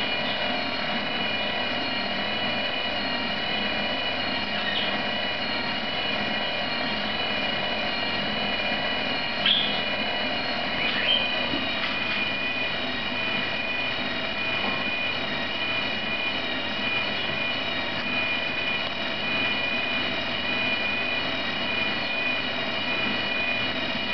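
Counter-rotating twin-propeller prototype unit spinning in air on its test stand, giving a steady mechanical whine and whirr, with a couple of brief chirps about ten and eleven seconds in.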